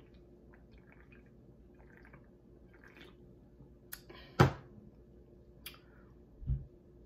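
Faint wet mouth sounds of drinking from a drink can and swallowing. About four and a half seconds in comes a single sharp knock, the loudest sound, and a low thump follows near the end.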